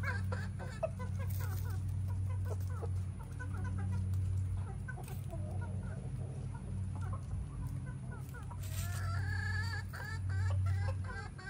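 Backyard flock of hens clucking, with many short calls overlapping throughout and a busier run of calls near the end. A steady low hum runs underneath.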